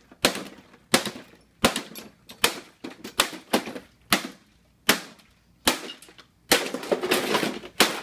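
A claw hammer repeatedly striking a stainless-steel Viking Professional coffee maker on concrete: about a dozen sharp metallic bangs at irregular intervals, then a denser clatter of blows and breaking parts near the end.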